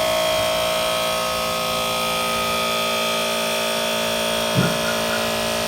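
Small electric pump running with a steady whine, building fuel pressure in an externally fed fuel rail up to about 2.5 bar. A brief knock about four and a half seconds in.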